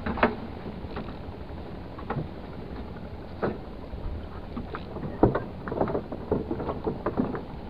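Sea water sloshing against a small fishing boat's hull, with scattered short knocks and clicks that come more often in the second half.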